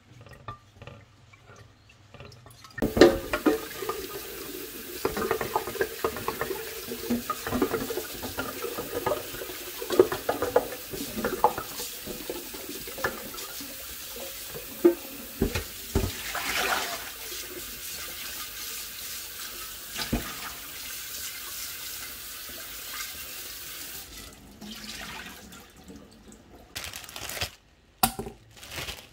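Kitchen tap running into a stainless steel sink while a black glazed clay kettle is rinsed and scrubbed under it by hand, with knocks and scrapes of the pot against the sink. The water comes on about three seconds in and stops a few seconds before the end, leaving a few clinks.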